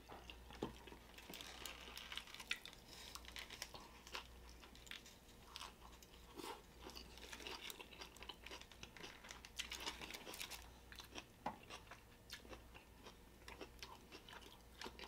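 Faint close-miked chewing of a mouthful of flour-tortilla burrito: a run of small wet mouth clicks and smacks.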